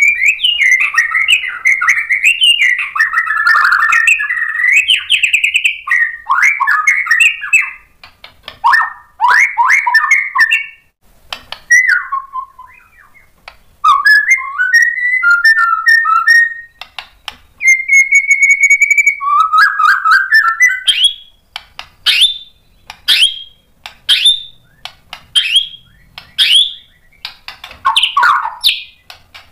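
Male white-rumped shama singing loudly, running through its repertoire of learned imitations (isian). It opens with several seconds of dense, fast warbling, then breaks into separate phrases with short pauses and one held steady whistle. Near the end come short, sharp rising notes about once a second.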